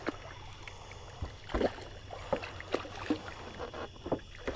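Irregular light knocks and clicks from fishing gear being handled in a boat, over a low steady hum.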